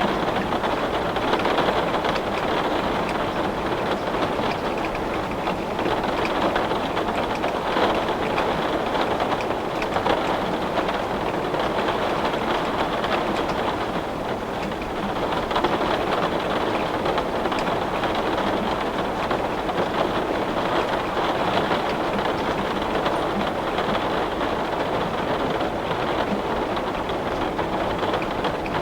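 Heavy rain falling on window glass: a steady, dense hiss with faint scattered taps of drops, easing slightly for a moment about halfway through.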